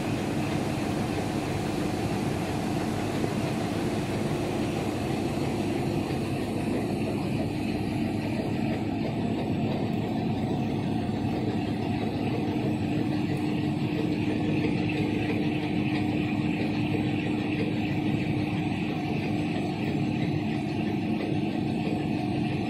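Rotogravure printing machine running steadily, its rollers feeding plastic film through the press: an even mechanical drone with a constant hum held throughout.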